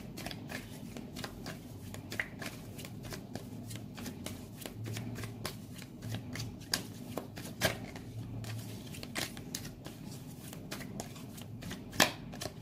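Deck of tarot cards being shuffled by hand: a steady run of soft, irregular card clicks and slides, with one sharper snap near the end.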